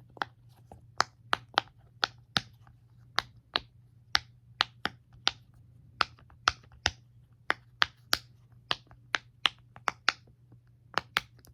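Silicone pop-it fidget toy bubbles being pressed and popped one after another with the fingers: a long run of sharp little pops, about three a second at an uneven pace.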